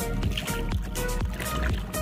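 Background music with a fast, steady beat, about four beats a second, over heavy bass.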